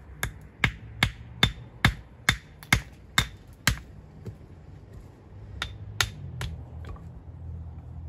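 Hammer blows on stone: a run of about nine sharp, ringing strikes, a couple a second, then after a short pause four lighter ones.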